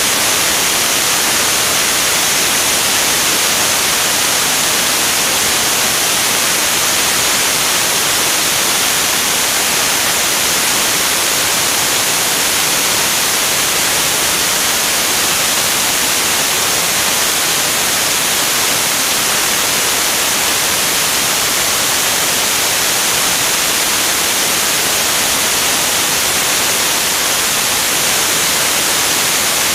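Steady, unbroken rushing hiss of high-speed airflow over a camera mounted on a jet's wing in flight, with no distinct engine tone standing out.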